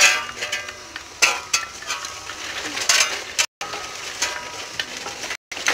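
Metal shovel scraping and knocking against the stones and gritty earth of a pachamanca earth oven, in a series of uneven scrapes.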